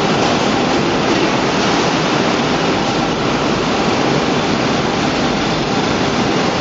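Loud, steady machine noise of a no-twist wire coiler running, laying welding wire down into a carton.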